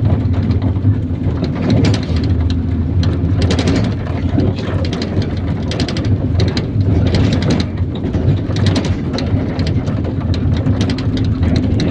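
IVECO Daily bus under way, its engine giving a steady low drone, with irregular clattering and knocks from the body and fittings throughout.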